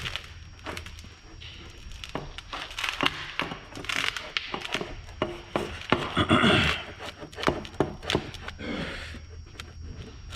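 Workshop handling noise from metal exhaust parts: scattered knocks, taps and clinks, with a louder scraping rush about six seconds in.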